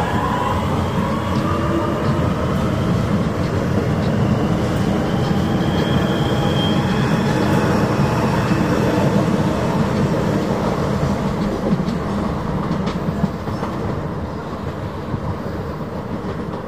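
DART electric multiple unit pulling away close past the platform. Its traction motors whine, rising in pitch as it gathers speed, over the rumble and clatter of its wheels on the rails. The sound fades over the last few seconds as it leaves.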